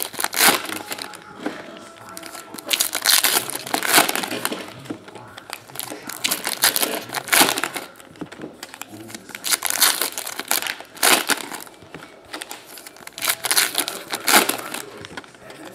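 Trading-card pack wrappers being torn open and crinkled, in irregular crackling bursts every second or two.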